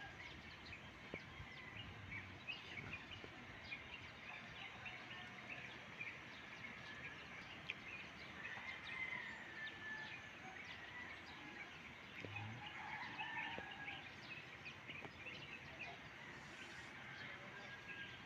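Faint outdoor ambience of many small birds chirping, short high calls packed close together throughout, with one longer drawn-out call a little before the middle.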